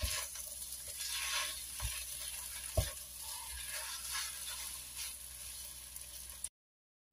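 Rice vermicelli, cabbage and carrot sizzling faintly in a wok, stirred with a silicone spatula in soft scraping strokes, with a light tick about three seconds in. The sound cuts off abruptly near the end.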